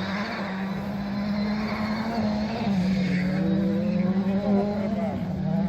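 Rally car engine running at high, fairly steady revs as it comes along the stage, growing louder.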